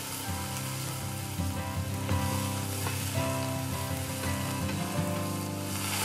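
Diced beef sizzling as it browns in hot oil in a spun steel camp oven, with tongs stirring it in the pot. Steady background music plays underneath.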